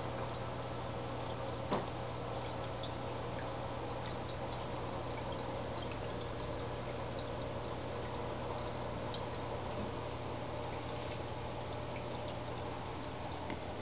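Water pouring and trickling steadily in a turtle tank over a low steady hum, with scattered faint clicks and one sharper click a little under two seconds in.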